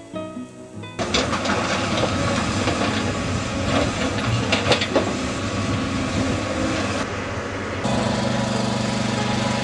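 Hydraulic excavator at work: its diesel engine runs under load, with clanks and scrapes of rock and metal. From about eight seconds a steadier diesel drone from another earthmover takes over.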